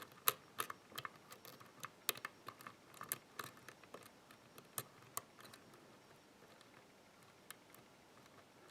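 Small, sharp metallic clicks of a hook pick working the pin stack of an ABUS C83 euro cylinder under light tension, as pins are lifted and set. The clicks come irregularly and often for about five seconds, then only now and then.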